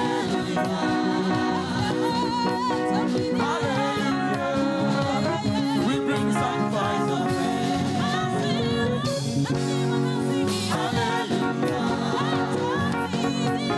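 Live Nigerian gospel praise music: a band playing with a choir singing over it.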